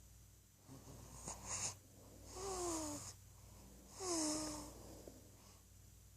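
One-month-old baby snoring in sleep: a quick sniffly breath, then two longer noisy breaths about a second and a half apart, each with a short falling squeaky note.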